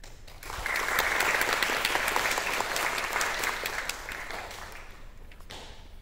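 Audience clapping in response to a bow, swelling in about half a second in and dying away over the last couple of seconds, with a single sharp knock near the end.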